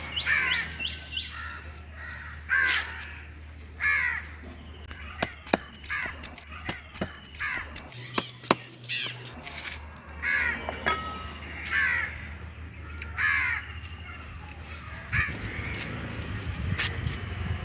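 Crows cawing over and over, with sharp knocks in the middle as a cleaver chops raw chicken on a wooden block.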